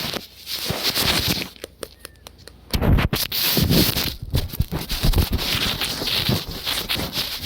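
Scratching and rubbing close against the microphone, as in handling noise from a phone moved over clothing: a short burst, a brief lull, then steady scratchy rustling from about three seconds in.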